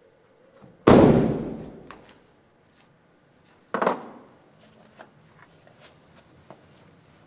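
Two loud bangs in a large room: a heavy slam about a second in that rings out for about a second, then a shorter, sharper bang about three seconds later.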